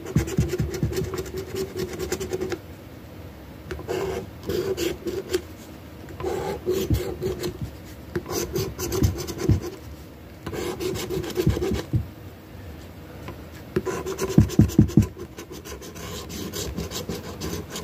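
Scratching the coating off a scratch-off lottery ticket: rasping, scraping strokes in about seven bursts of one to two seconds each, with short pauses between them.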